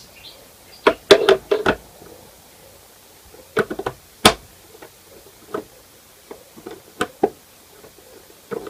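Irregular sharp knocks and clicks of hard parts being handled and set down: a quick cluster about a second in, another just before the middle with one louder knock, then scattered single taps toward the end.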